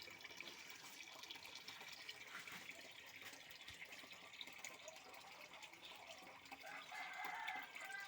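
Faint running and trickling water, with drips.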